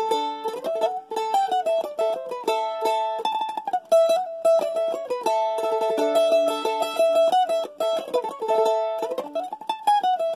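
Acoustic mandolin playing an instrumental melody, with the held notes sustained by rapid tremolo picking.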